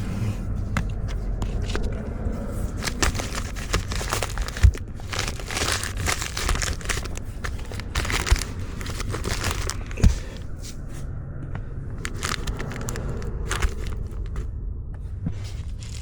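Plastic panels and parts rustling and crinkling as they are handled under the dashboard, with scattered clicks and a few sharp knocks.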